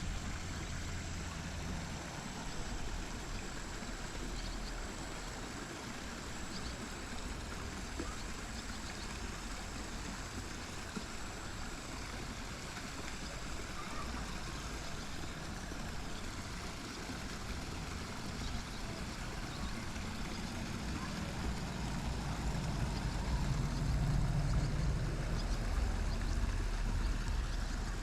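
Steady rush of a flowing stream, with a low rumble that swells near the end.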